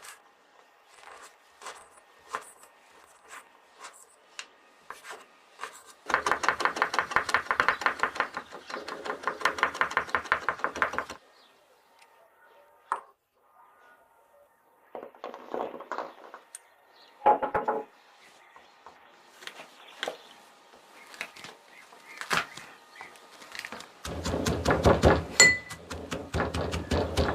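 Pestle pounding spices in a mortar: scattered taps, then a spell of rapid, steady pounding strokes about six seconds in that lasts some five seconds, a few shorter clusters of knocks, and another spell of rapid pounding near the end.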